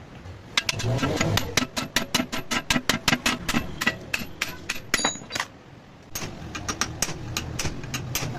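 A fast run of sharp clicks or taps, about six a second. It stops briefly a little past the middle and then starts again.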